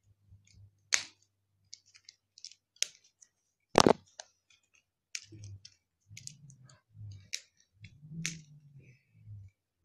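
Clicks and crinkles of a small plastic toy packet being worked open by hand, with two sharp snaps about one and four seconds in, the second the loudest. In the second half, muffled rubbing and knocks of clothing against the microphone.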